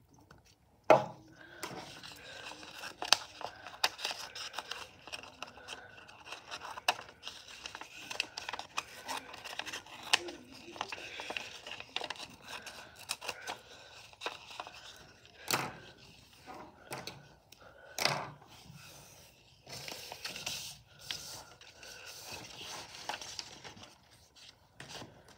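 Scissors cutting brown paper in a run of snips, with the paper rustling and scraping on a wooden desk as it is handled. A sharp knock about a second in is the loudest sound, and a few strong clicks come later.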